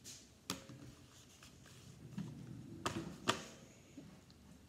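Slime being stretched and squeezed by hand: soft sticky handling noise with sharp clicks, one about half a second in and two close together about three seconds in.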